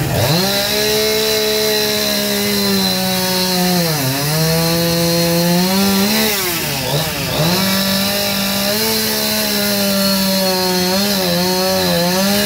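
Two-stroke chainsaw running at high revs as it carves into a wooden log. The engine pitch dips and climbs back about four seconds in, and again around seven seconds in.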